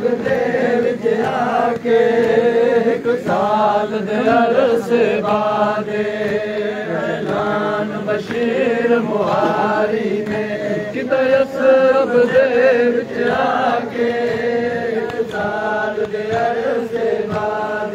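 A noha, the Shia mourning lament, chanted by men's voices without a break, with a crowd of mourners around the reciter.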